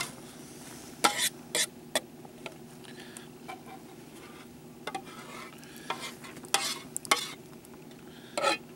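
A metal fork clinking and scraping against a cooking pot as tomato sauce is poured and scraped out onto pasta in a steel bowl: several sharp clinks about a second in and again near the end, with softer scraping between.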